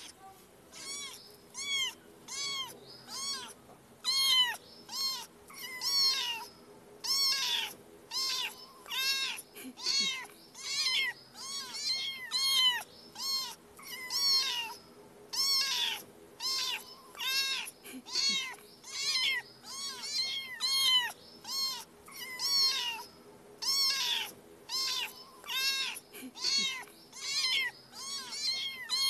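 Young kitten mewing over and over, short high-pitched calls about one or two a second, each rising and then falling in pitch.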